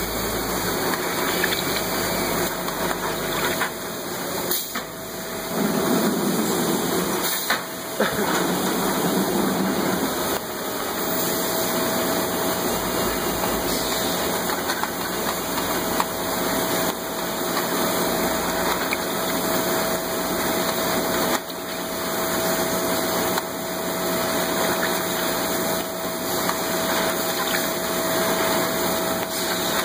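Bag-palletizing machinery running with a steady mechanical drone, joined about a third of the way in by a faint whine that holds one pitch. A few sharp clunks stand out above it.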